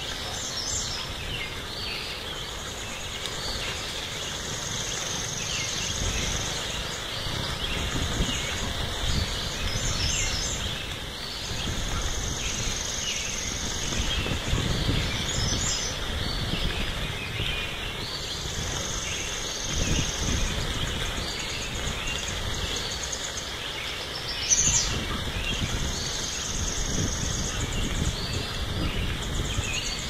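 Tropical outdoor ambience: a steady high insect chorus, with a higher buzzing trill that swells up for about two seconds every few seconds, scattered bird chirps, and an uneven low rumble underneath.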